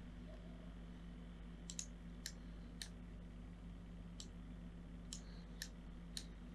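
Faint computer mouse clicks, about seven scattered single clicks, over a low steady electrical hum.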